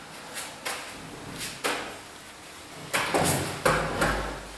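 Short knocks and scrapes of a plasterer's corner rule being pressed against the wall and into fresh gypsum plaster, a few at a time. They are sparse at first and come faster and louder in the last second and a half.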